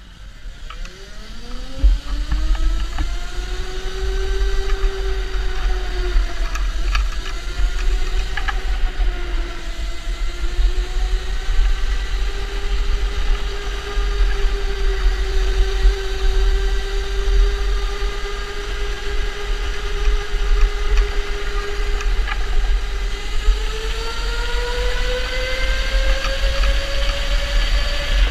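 Electric indoor go-kart's motor whining as the kart pulls away, the pitch rising over the first few seconds, then holding fairly steady with small dips through the corners and climbing again near the end as speed builds. A steady low rumble runs underneath.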